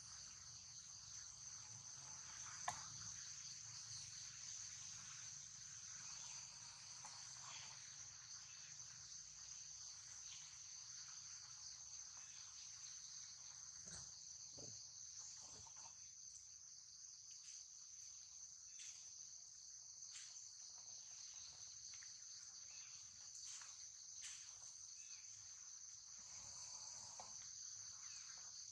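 Faint, steady, high-pitched drone of insects chirring without a break, with a few faint clicks and taps scattered through it.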